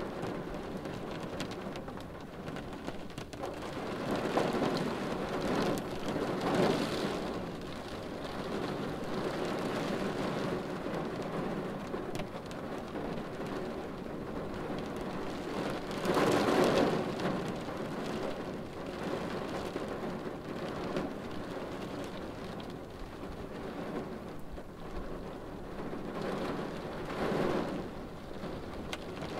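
Steady rain falling on a car's windshield, swelling louder three times: about five seconds in, around the middle and near the end.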